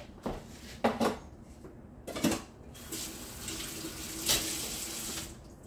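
A few knocks of dishes being set down, then a kitchen faucet running into the sink for about two and a half seconds and shut off near the end.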